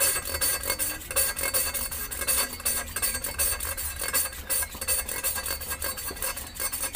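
A motorcycle's intake valve being hand-lapped against its seat in the aluminium cylinder head with coarse grinding paste and petrol, giving a gritty metal-on-metal scraping in a quick back-and-forth rhythm. The lapping grinds valve and seat to a matching ring so the valve seals again, the cure for the engine's loss of compression.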